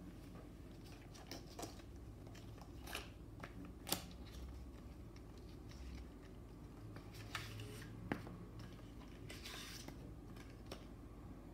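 Light handling of cardboard packaging and paper leaflets: scattered soft taps and clicks, with a brief papery rustle late on.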